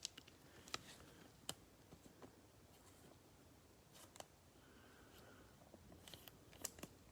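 Faint, scattered clicks and soft rustling of trading cards being handled.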